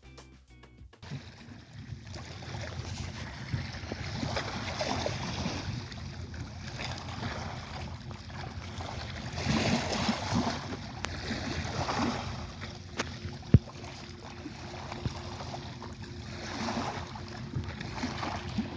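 Sea waves washing ashore, the sound swelling and easing every few seconds over a steady low rumble of wind on the microphone, with one sharp click about two-thirds of the way through.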